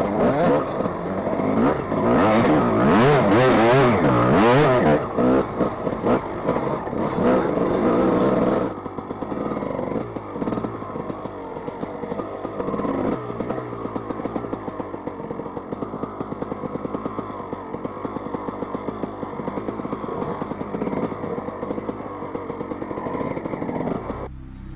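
Suzuki enduro motorcycle engine revving hard, its pitch rising and falling repeatedly, for the first eight seconds or so. It then drops suddenly to a quieter, steadier run at low revs.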